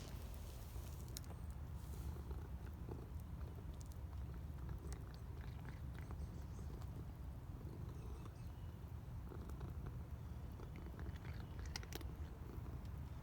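A cat purring in a steady low rumble, with faint scattered small clicks and one sharp click at the very start.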